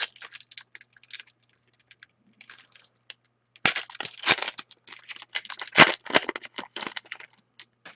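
A pack of hockey trading cards being torn open, its wrapper crinkling and crackling in a busy stretch in the second half, with lighter rustling before it.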